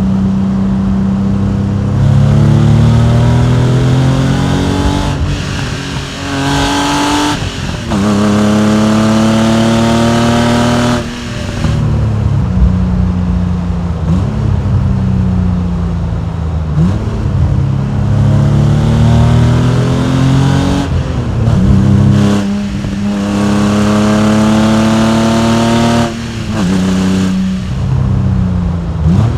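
Porsche 993 Carrera's air-cooled, naturally aspirated flat-six engine and exhaust pulling hard through the gears: the pitch climbs in several runs, each broken by a short dip at a gear change, with stretches where the revs fall off between the bursts of acceleration.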